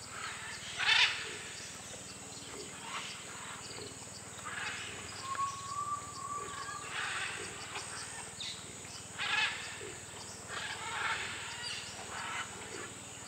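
A herd of white-lipped peccaries calling as it wades across a stream: short noisy calls, one every second or two, over a steady high hum. A single held whistle comes about five seconds in.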